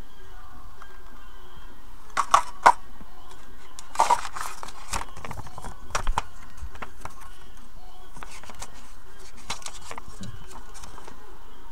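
Clear plastic clamshell packaging clicking and crackling as it is handled and opened, with sharp snaps about two, four and six seconds in, then the softer rustle of a paper instruction leaflet being unfolded.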